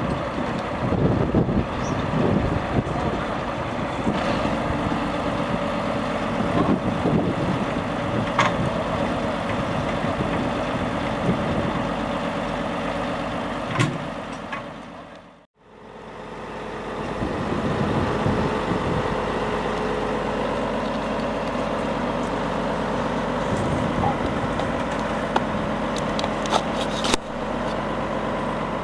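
Volvo truck's diesel engine running steadily while its truck-mounted crane lifts concrete slabs, with a few sharp clinks. The sound fades out to near silence and back in about halfway through.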